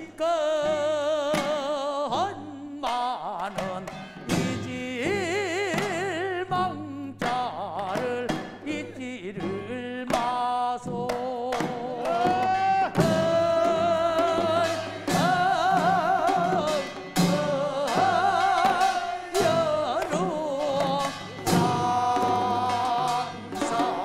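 Korean folk rice-transplanting field song (deulsori): voices sing long held notes with a wide, wavering vibrato over steady drum beats.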